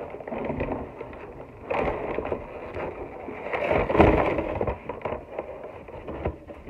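Paper takeout bag rustling and crinkling as a hand rummages inside it, with a louder knock about four seconds in.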